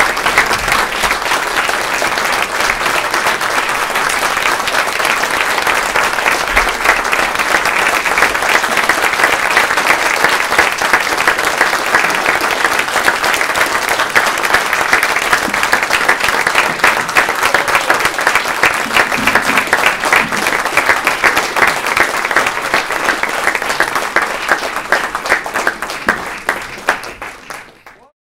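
A roomful of people applauding, a dense steady clapping that thins and fades out near the end.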